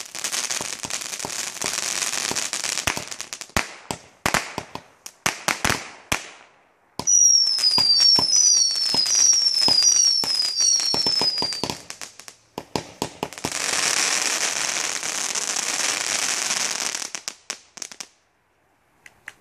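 Black Cat consumer fireworks going off: a dense hissing crackle full of sharp pops, thinning to scattered cracks. From about seven to twelve seconds in, a string of falling whistles sounds among the cracks, then a second hissing, crackling spell stops suddenly about eighteen seconds in.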